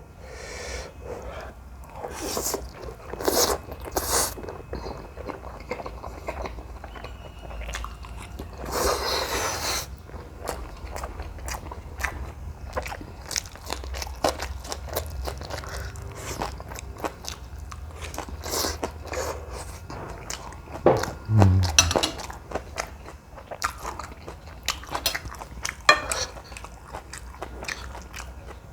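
Close-miked mukbang eating sounds from a person eating jjajangmyeon noodles: irregular chewing, smacking and crunching. A longer noisy stretch comes about nine seconds in, and a short low hum a little after twenty seconds.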